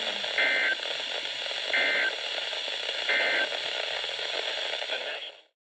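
Three short Emergency Alert System (SAME) end-of-message data bursts, buzzy digital squawks about 1.4 s apart, over the steady hiss of a weather radio receiver. They mark the end of the flood warning broadcast, and the audio cuts off near the end.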